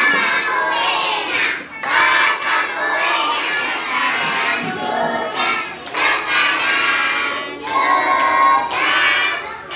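A group of young children singing together, phrase after phrase with short breaks between them.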